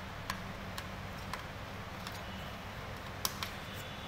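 Small sharp clicks and ticks of metal and plastic as the CMOS coin-cell battery is worked out of its socket on a desktop motherboard, a handful spread out with two close together near the end, over a steady low hum.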